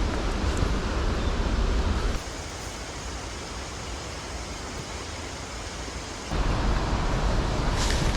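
Wind buffeting the microphone with a steady rushing noise and a low rumble. It drops suddenly to a softer hiss about two seconds in and comes back about six seconds in.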